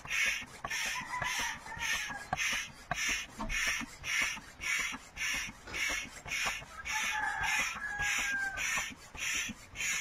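Hand-held stand-up air pump worked in steady strokes, a hiss of air with each stroke about twice a second, pumping up a backhoe's flat tyre.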